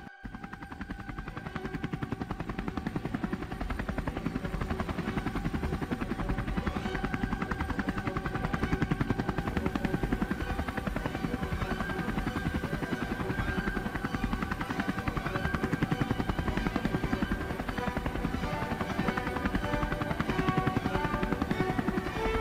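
Robinson R44 helicopter in flight: fast, steady rotor-blade chop with an engine drone, swelling up over the first few seconds and then holding steady.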